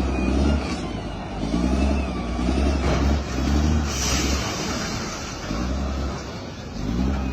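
Diesel engine of heavy demolition machinery running, its low drone swelling and easing every second or two. A short hiss comes about four seconds in.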